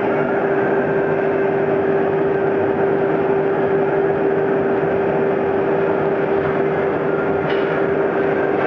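Twin-circular-saw log-squaring machine running with a steady hum and one constant tone, its level unchanging throughout.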